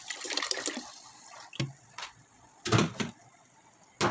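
Fresh milk pouring from a carton into a stainless steel pot of rice, splashing for about a second before the pour stops. A few short knocks follow, the loudest a thump about three seconds in.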